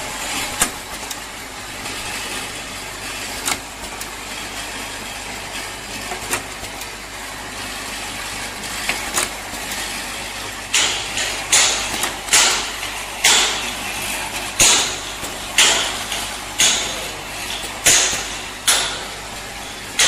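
Automatic spray bottle filling and capping machine running with a steady hum. From about halfway on, short sharp hisses of air come about once a second as its pneumatic cylinders cycle.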